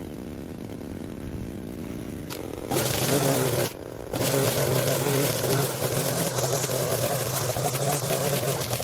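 Small gasoline engine of lawn equipment running steadily. It is fainter at first, comes in louder about three seconds in, and drops out briefly just before the four-second mark.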